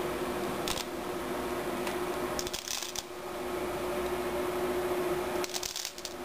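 Three short bursts of rustling, scraping handling noise, about a second in, around three seconds in and near the end, over a steady hum with a single tone.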